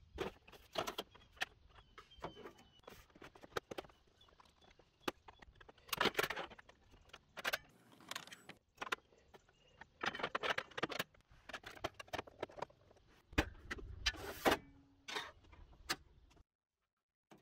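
Irregular clicks, knocks and rattles of plastic and metal parts being handled on a SawStop Jobsite Saw PRO table saw: a part lifted out of its moulded plastic storage compartment, and the front adjustment handwheel being worked. The sound cuts off into dead silence about a second before the end.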